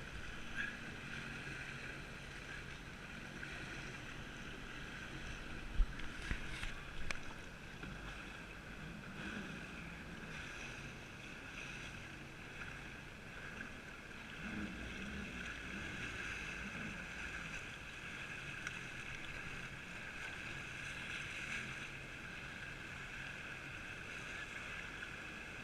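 Jet ski engine running steadily with a constant whine, and a few brief knocks about six to seven seconds in.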